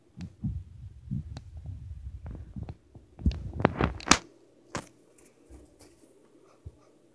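A run of dull, low thumps for about four seconds, ending in several sharp knocks, with one more knock a little later.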